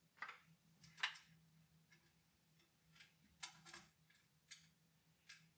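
A handful of faint, scattered clicks and rustles: a fan's power cable and its plastic Molex adapter being handled and routed inside an open metal computer case.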